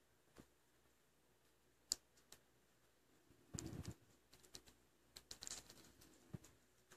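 Faint handling noise: a fleece blanket rustling as it is tucked around a baby squirrel, loudest about halfway through and again a little later, with scattered soft clicks.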